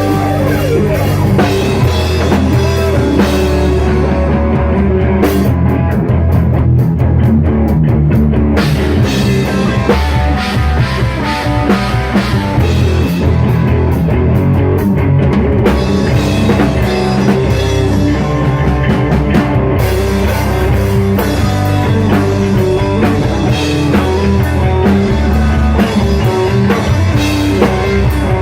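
Rock music played on drum kit and guitar, loud and continuous.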